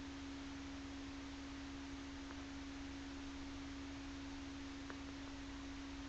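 A steady, unchanging electrical tone over an even hiss and low hum: background noise of the recording itself. Two faint ticks, about two seconds and five seconds in.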